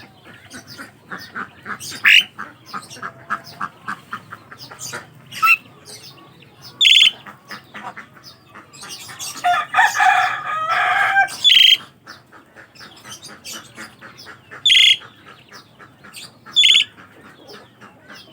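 Pied starlings (jalak suren) calling: a fast run of clicking chips, several short shrill notes, and a harsh chattering burst in the middle, played as a lure call to start a silent bird singing.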